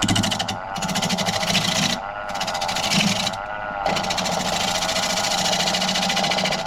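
Turning gouge rough-rounding an uneven wooden bowl blank spinning on a Laguna wood lathe: a fast, even clatter as the tool meets the out-of-round surface, over the lathe's steady motor hum. The cutting noise breaks off briefly three times as the tool is eased off and brought back in.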